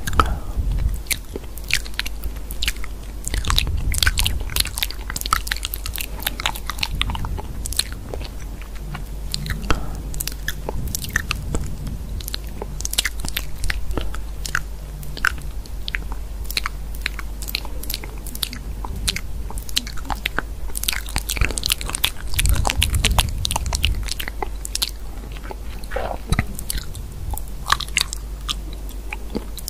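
Many irregular crisp clicks and crunches, close and dry, over a steady low hum.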